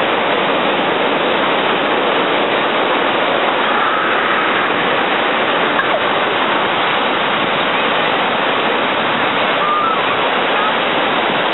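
Ocean surf breaking and washing around waders: a loud, steady rush of water.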